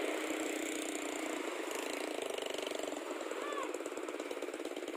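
A small engine running with a rapid, even putter, which comes through more clearly from about three seconds in, over a steady hiss.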